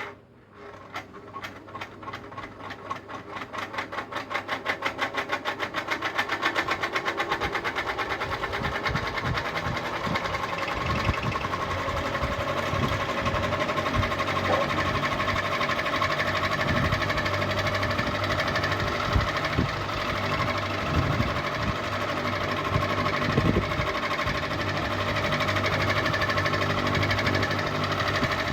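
Ceiling fan spinning up from a start, with a rhythmic ticking that speeds up over the first six to eight seconds. It then settles into a fast, steady rattle over a low motor hum.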